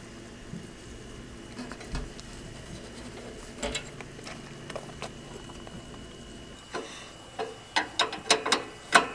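Socket ratchet clicking as bolts on a garden tractor's drive shaft are worked loose: a few scattered clicks, then a quick run of sharp clicks near the end.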